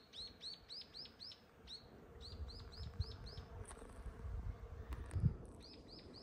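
A small songbird singing a fast series of repeated high, down-hooked notes, about three or four a second, in three bouts with short gaps. Low thumps and rumble run underneath, the loudest thump about five seconds in.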